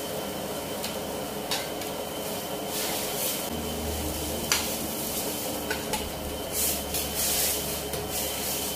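Steel wok of water boiling over a gas burner while ingredients are tipped in and a metal ladle stirs it, clinking and scraping against the wok. The sharpest clink comes about four and a half seconds in.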